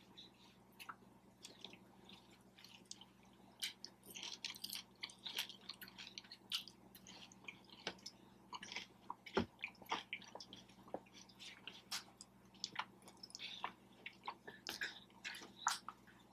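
A person chewing and biting food close to the microphone: soft wet smacks and clicks at irregular intervals, with one low thump about halfway through.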